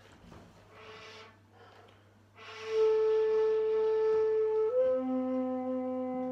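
Shakuhachi bamboo flute: soft breathy puffs of air, then about two and a half seconds in a strong breathy attack into a long held note. Near the end the note steps up slightly in pitch and a lower steady tone joins it.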